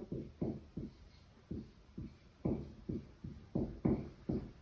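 Writing on a board: a string of short soft taps and strokes, unevenly spaced at about three a second, as the factorised expression is written out.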